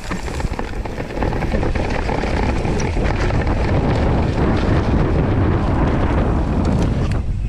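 Wind rushing over the camera microphone and tyres rumbling on a rutted dirt trail as a YT mountain bike descends at speed, with knocks and rattles from the bike over bumps. It gets louder about a second in as the bike picks up speed.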